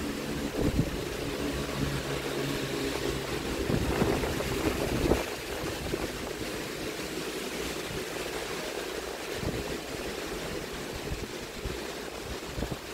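Steady noise of rain and wind at an open railway platform. A low mechanical hum is heard over the first few seconds and then fades away.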